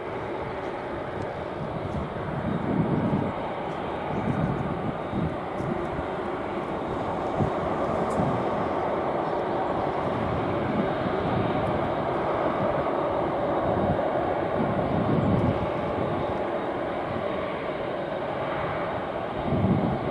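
Boeing 747-8 freighter's four GEnx turbofan engines running, a steady jet rush with an uneven low rumble underneath.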